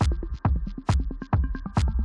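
Electronic background music with a steady dance beat, about two beats a second, with a sharp hit on every other beat.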